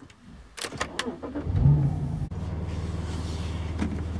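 Car engine starting about a second and a half in after a couple of clicks, briefly revving as it catches, then settling into a steady idle.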